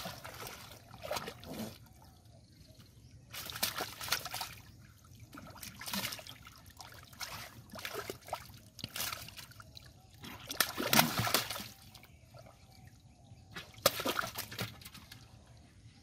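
Hands sloshing and splashing through shallow muddy water while groping for fish by hand, in irregular bursts with short quiet gaps; the loudest splashing comes a little past the middle.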